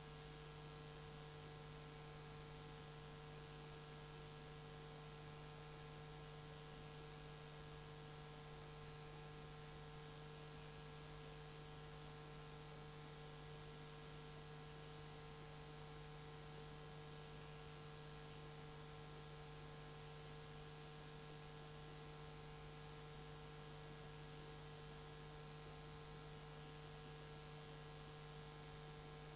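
Faint steady electrical hum with a high hiss over it; no other sound stands out.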